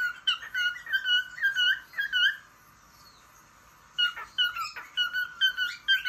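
Cockatiel singing: a quick run of about eight short, chirpy whistled notes lasting a little over two seconds, then a pause, then a second run of similar notes about four seconds in.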